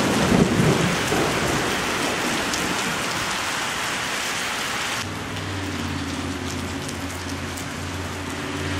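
Heavy thunderstorm rain pouring steadily, with the tail of a low thunder rumble dying away in the first second. About five seconds in the sound changes abruptly, and a low steady car-engine hum joins the rain.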